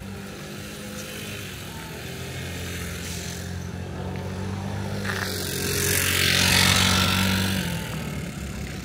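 Street noise: a steady low hum, with a passing motor vehicle that swells to its loudest about six and a half seconds in and then fades.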